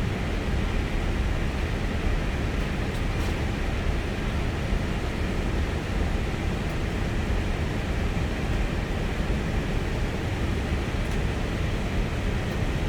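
Steady flight-deck noise inside an Airbus A320: an even rush and low rumble from the aircraft's engines and air systems, with no changes in level.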